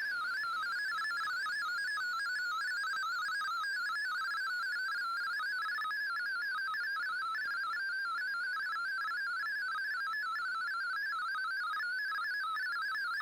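MFSK digital-mode data signal from a shortwave receiver's audio: a steady stream of tones hopping rapidly between pitches in a narrow band, heard as a fast, even warble.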